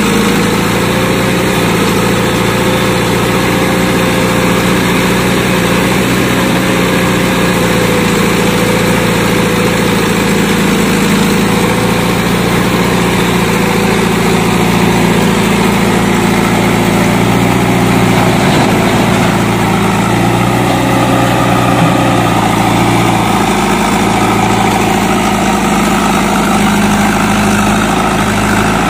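Diesel engine of a JCB 3DX backhoe loader running steadily while it digs and dumps soil, with a tractor's diesel engine running alongside.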